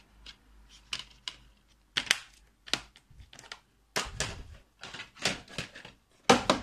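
Plastic DVD case clicking and clattering as a disc is pried off its centre hub and handled: a string of sharp, irregular clicks, the loudest near the end.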